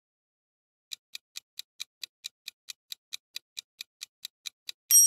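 Countdown timer sound effect ticking, about four or five sharp ticks a second, starting about a second in, then a single bright ding that rings on briefly near the end as time runs out.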